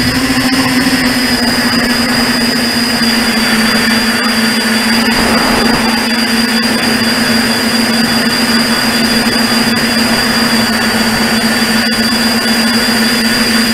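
Electric motors and propellers of an RC tricopter in flight, heard from its onboard camera: a loud, steady whine over a rush of air.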